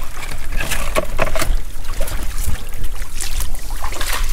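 Shallow sea water lapping and sloshing against a rocky reef edge in heavy rain, full of irregular crackling splashes over a steady low rumble.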